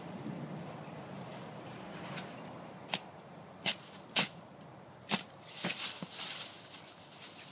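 Dry leaves and litter crackling and rustling under a Doberman as it tugs at the foam stuffing of a dumped couch and steps about. There are scattered sharp crackles, with a denser stretch of rustling about five to six seconds in.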